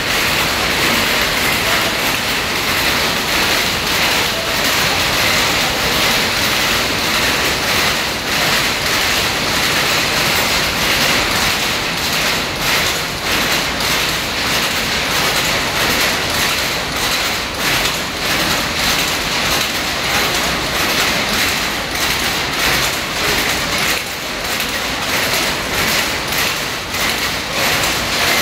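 A row of power looms with electronic jacquard heads running together: a loud, steady clatter of rapid, overlapping clacks.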